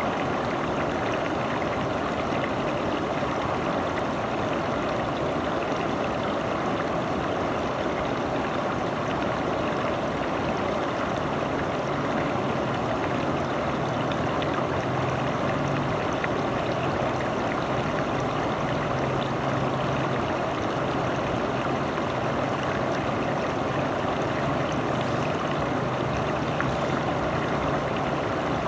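River water flowing steadily over rocks, an even rushing sound. A faint low hum joins about a third of the way in.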